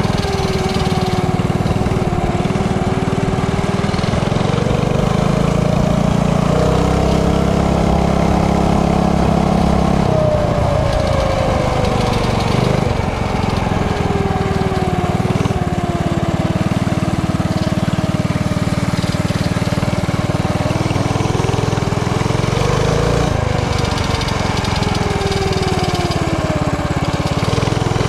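Mini bike's Tillotson 212cc single-cylinder four-stroke engine running while the bike is ridden, its pitch rising and falling with the throttle and dropping off about ten seconds in.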